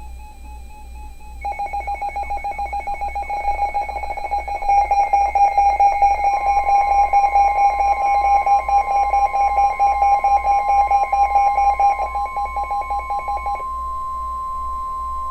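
Weather-radio warning alarm tone: a single steady tone near 1050 Hz comes in about six seconds in and holds. Under it, a rapidly pulsing electronic ringing tone starts a little over a second in and stops shortly before the end.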